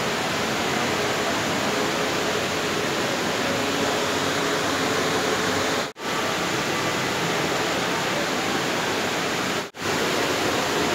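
Steady rushing hiss of water pouring down a tall indoor waterfall, a multi-storey curtain of falling water streams. The sound cuts out for a moment twice, about six and ten seconds in.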